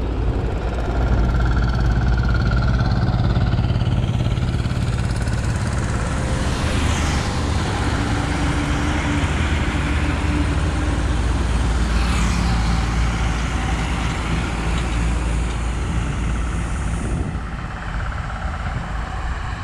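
Heavy diesel goods trucks and a bus passing close on a hill road, a steady deep engine drone with tyre noise. The sound swells as vehicles go by, about twice with a falling sweep, and fades near the end.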